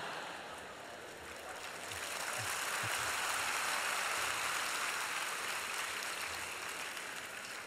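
A large audience laughing and applauding. It swells about two seconds in and dies away toward the end.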